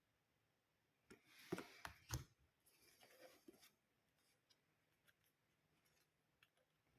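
Tarot cards being handled and slid against one another: a soft papery rub with two light taps a little after a second in, then a fainter shorter rustle.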